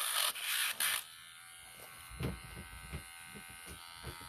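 Cordless Dremel rotary tool on low speed grinding a dog's nail: a loud rasping grind, broken twice, for about the first second, then the motor hums quietly off the nail. Soft low knocks come in from about two seconds in.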